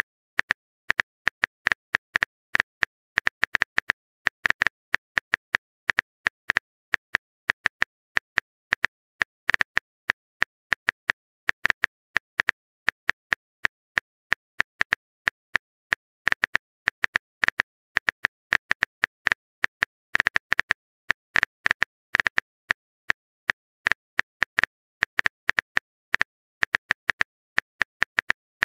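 Phone keyboard typing sound effect: quick, irregularly spaced clicks, several a second, like a message being tapped out.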